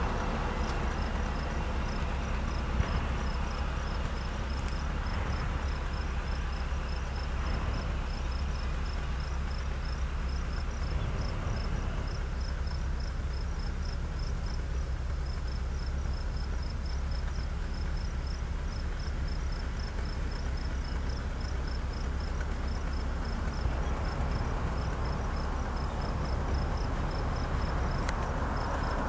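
An insect chirping steadily in short high-pitched pulses, several a second, over a steady low rumble.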